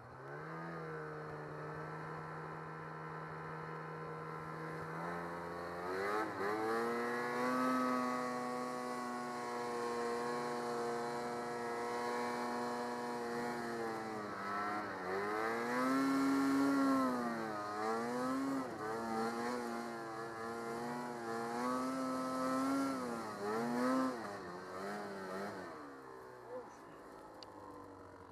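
Snowmobile engine being ridden under throttle: it picks up about half a second in, climbs to a higher steady pitch around six seconds in, then rises and falls repeatedly as the throttle is worked, before easing off near the end.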